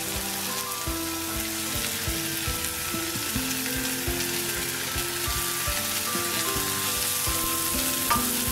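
Hot oil sizzling in a pan as diced vegetables (green beans, peas, sweet corn and carrots) are swept off a steel plate into it, with many light knocks as they land. Soft background music with held notes plays underneath.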